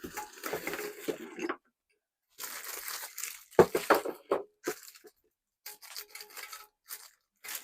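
Handling noise of packaging being crinkled and moved about, in irregular bursts with short gaps, with a sharp click about three and a half seconds in.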